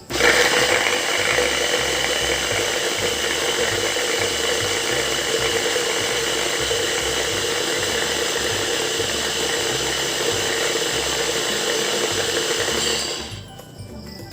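Electric kitchen blender running at a steady speed, blending juice ingredients with a little water. It starts abruptly and is switched off near the end, winding down within about half a second.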